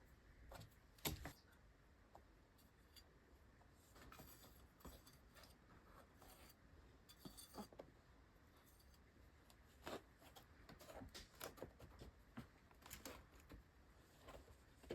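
Faint rustling and light clicks of hands sprinkling vermiculite over seed trays and handling the plastic trays, with one louder knock about a second in.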